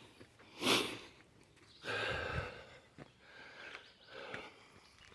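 A man's heavy, labored breathing from climbing a steep trail: a sharp hard exhale about a second in, a longer louder breath around two seconds, then softer panting.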